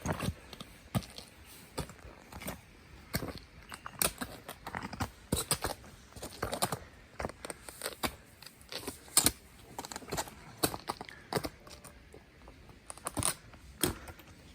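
Footsteps crunching in snow on a mountain trail: an irregular run of short crunches and clicks, some sharper than others.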